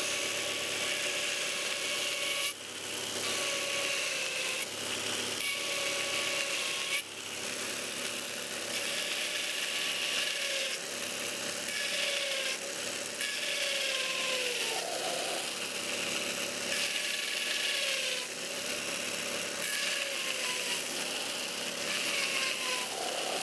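Belt grinder running, with a small steel part held against the moving abrasive belt. The motor's whine sags in pitch each time the work is pressed in, over a steady grinding hiss, with a couple of brief breaks.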